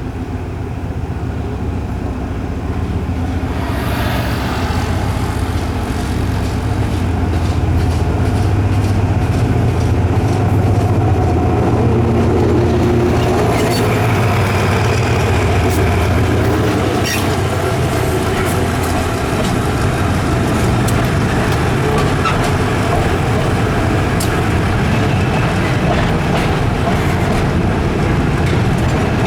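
GE CM22-7i diesel-electric locomotive pulling a freight train out, its diesel engine running under load and growing louder over the first ten seconds or so. From about halfway through, wheels click over the rail joints as the train rolls past.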